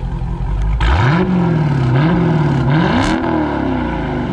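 Dodge Challenger Scat Pack Widebody's 392 HEMI V8 revved three times from idle through its exhaust, the last and highest rev about three seconds in, then falling back toward idle.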